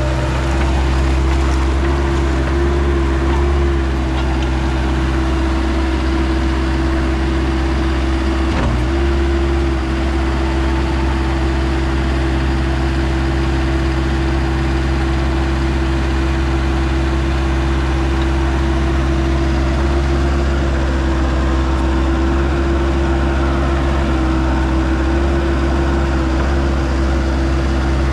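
Bobcat 773 skid steer's diesel engine running steadily, with a brief dip in pitch and level about nine seconds in.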